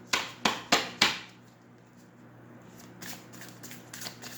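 Deck of tarot cards being shuffled by hand: four sharp card slaps in quick succession in the first second, then softer card rustling and ticking.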